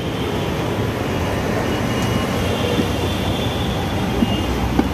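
Steady roadside traffic noise, with a low engine rumble coming in near the end.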